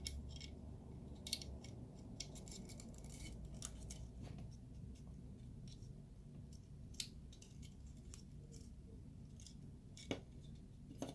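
Light, scattered plastic clicks and taps as small snap-fit model-kit parts, the Pikachu's back stripes, are handled and pressed into place. The clicks come thickly for the first few seconds and only now and then after that.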